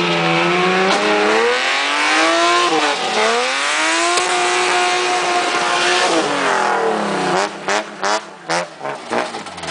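BMW E36 drift car's engine revving hard, its pitch rising and falling, over the screech of tyres spinning and smoking as the car slides sideways. In the last couple of seconds the engine note cuts in and out several times in quick succession.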